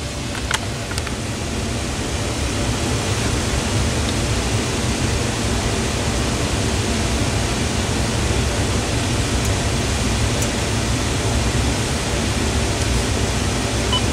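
Steady hiss of static, with two faint clicks in the first second.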